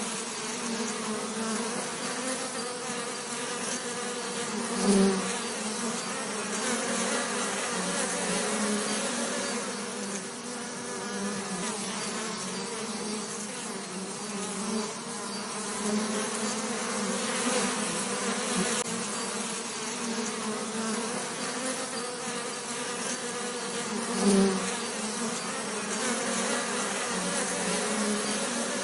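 Bees buzzing: a steady, low, pitched drone with two brief louder swells, about five seconds in and again about four seconds before the end.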